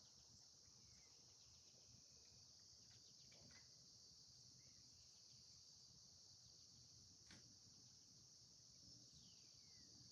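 Faint outdoor ambience: a steady high-pitched insect drone, with a few soft bird chirps and a short falling bird whistle near the end.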